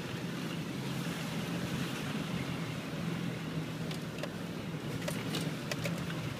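A 4x4's engine running steadily at low revs, heard from inside the cab as it crawls along a rutted mud track. A few light clicks and knocks come about four to six seconds in.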